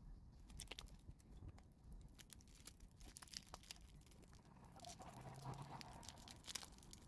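Faint crinkling and rustling of clear plastic packaging sleeves being handled, with scattered small crackles and clicks.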